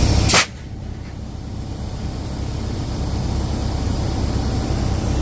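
A loud blast of compressed air from a pneumatic tire-shop tool, cut off abruptly just under half a second in, followed by a low steady rumble that slowly grows louder.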